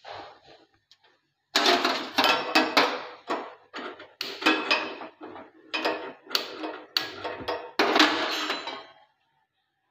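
Kitchen clatter: a fast run of sharp metallic clanks and knocks from steel pots and utensils, each ringing briefly, about two or three a second.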